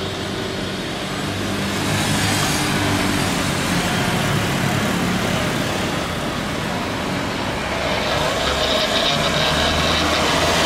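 Airbus A330 jet engines during touchdown and the start of the landing roll: a steady roar that grows louder about two seconds in and again near the end, when a higher whine joins it.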